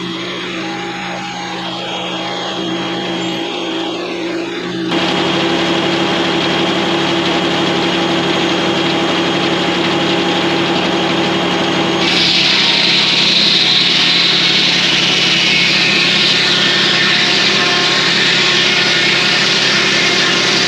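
Circle sawmill running on its diesel power unit, a steady engine drone. About five seconds in it suddenly gets louder, and about twelve seconds in a loud high hiss joins as the blade cuts through the hemlock log.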